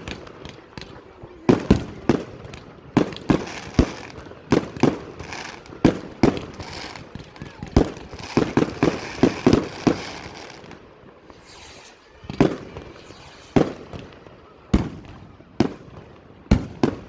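Fireworks going off: sharp bangs at irregular intervals, with a quick run of them about eight to ten seconds in.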